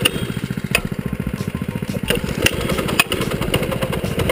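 Baja mini bike's small single-cylinder engine running with the throttle open, a fast even putter, still going after the bike was dumped in the mud. A few sharp clicks sound over it.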